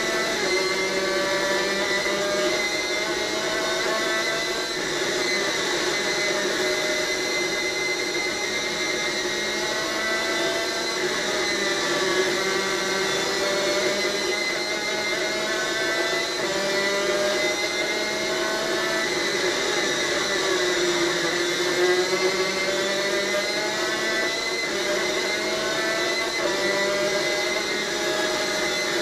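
Superkart's two-stroke engine running at racing speed, heard onboard, its pitch repeatedly climbing and then dropping back every few seconds through gear changes and corners.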